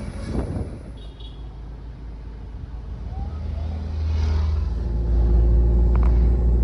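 Car engine and road noise, a low steady drone that grows louder about four seconds in as the vehicle picks up speed.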